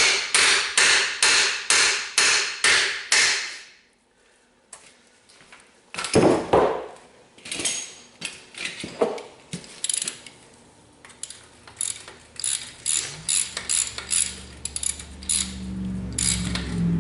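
Hand-tool work on a skid steer's steel track: two runs of sharp, regular metal-on-metal clicks at about three a second, with a louder clank about six seconds in. A low steady hum comes in near the end.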